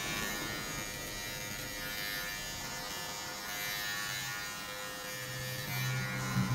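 Cordless battery hair clipper running steadily while trimming hair. A deeper hum comes in near the end.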